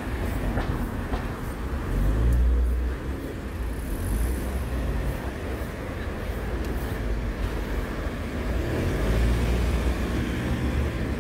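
City street traffic: a steady low rumble of passing cars and buses that swells about two seconds in and again near the end as heavier vehicles go by.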